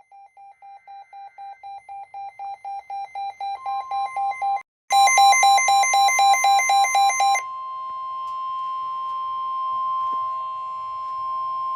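A weather radio sounding an alert. Rapid beeping, about four beeps a second, grows steadily louder, and a steady higher tone joins it: the NOAA Weather Radio 1050 Hz warning alarm tone. Past the middle the beeping stops and the steady alarm tone carries on alone.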